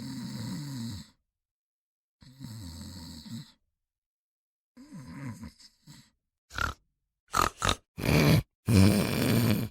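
A person snoring: three long rattling snores a couple of seconds apart, the third weaker. From about two-thirds of the way in come several short, louder noisy snorts or blasts in quick succession.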